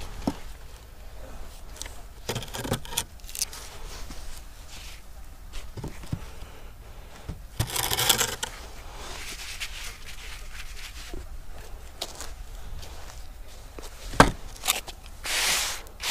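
Wooden screed board dragged and scraped through damp sand along a concrete foundation edge, levelling the sand bed. Two longer hissing sweeps of sand, one midway and one near the end, with scattered sharp knocks of the board, the loudest shortly before the end.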